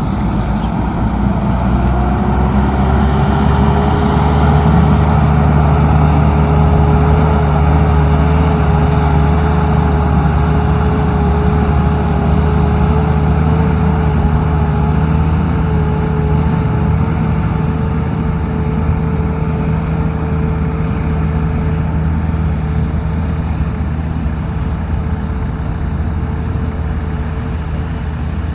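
Tractor engine running steadily, with a whine that climbs about a second in and then holds at one pitch.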